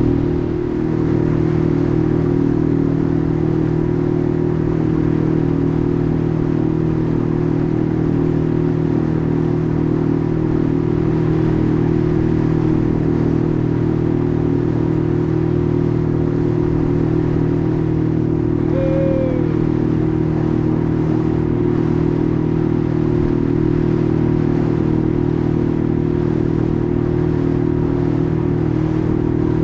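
Small boat's engine running steadily at cruising speed, a low even drone with several steady tones.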